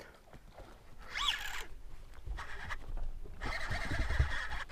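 Fishing reel during a cast and retrieve: a short whine that rises and falls about a second in as line spools out, then a steady whirring from the reel being cranked, over low rumbling from handling.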